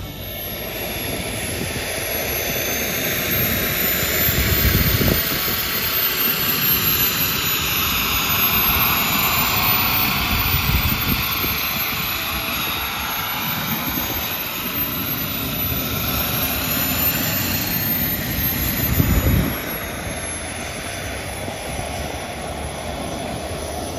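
Kingtech K45 turboprop turbine on a radio-controlled Pilatus PC-6 Porter model in flight: a high turbine whine over a steady roar, its pitch rising and falling as the plane flies around. It grows louder over the first few seconds.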